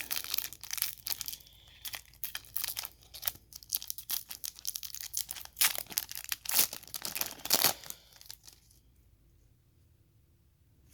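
A foil trading-card pack being torn open and its wrapper crinkled, with the cards rustling in the hands. Dense crackling and rustling that stops about eight seconds in.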